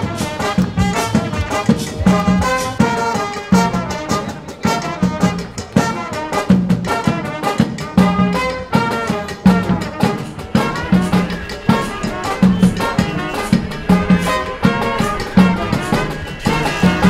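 Upbeat music led by brass, over a steady beat.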